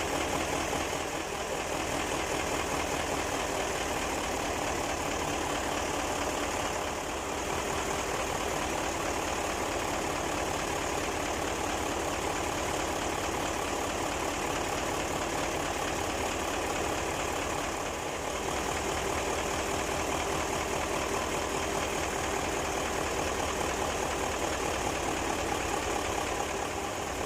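Mitsubishi Fuso 8M20 V8 diesel engine running steadily at idle, a dense, even mechanical clatter.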